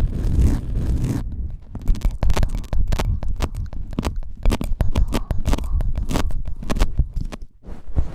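Ear pick rapidly scraping inside a binaural microphone's ear in ASMR ear cleaning: dense, quick, crackly strokes close to the microphone over a muffled low rumble, with a brief lull about seven and a half seconds in.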